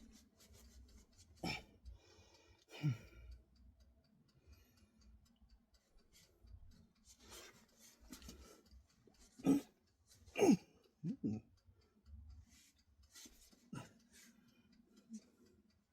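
Several short vocal sounds, each sliding down in pitch, the loudest two about ten seconds in, among faint clicks and rustling in a small room.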